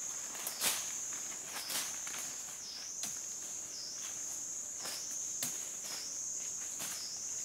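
Insects buzzing steadily in a high, continuous drone that dips in pitch about once a second, over footsteps crunching through dry leaf litter, with a few sharper cracks in the first couple of seconds.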